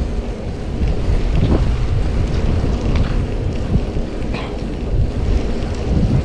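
Wind buffeting the microphone of a chest-mounted GoPro Hero 9 on a moving bicycle, a steady low rumble with a few faint clicks mixed in.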